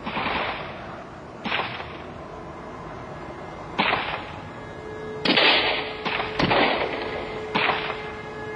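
Gunshots fired singly at uneven intervals, about six in all, each a sharp crack with a short echoing tail.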